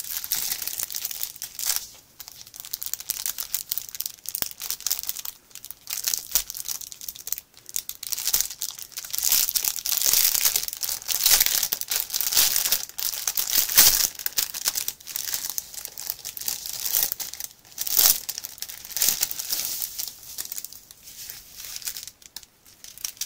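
Clear plastic packaging crinkling and crackling as hands handle and turn over a wrapped bundle of diamond painting drill bags, loudest in the middle.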